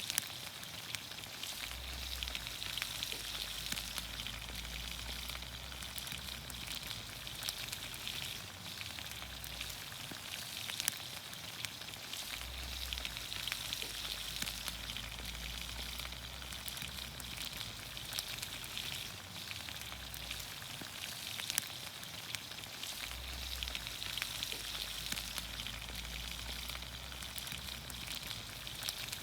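Green beans, onions, carrots and potatoes sizzling in olive oil over a campfire: a steady hiss with frequent small pops and crackles.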